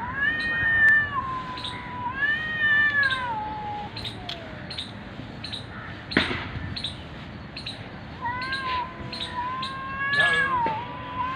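Cats yowling at each other in a face-off, the drawn-out, wavering caterwaul of an aggressive territorial standoff. Two long yowls rise and fall in pitch in the first few seconds, the second sliding down at its end, and a third, longer one begins about 8 seconds in; a sharp click sounds about 6 seconds in.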